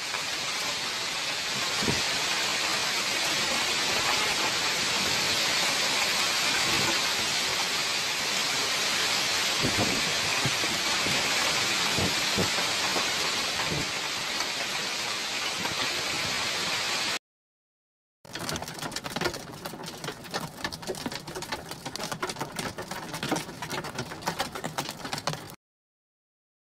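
Torrential rain and hail in a violent storm, a dense, steady rushing downpour. After a brief cut it turns to a rougher, crackling rush of hail-choked floodwater running along a street, which stops abruptly near the end.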